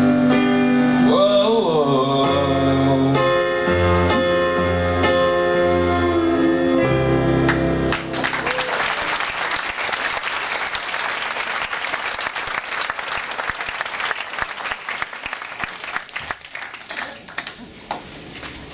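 The end of a live song: a sung line and instrumental accompaniment closing on a held final chord. About eight seconds in, the audience breaks into applause, which dies away near the end.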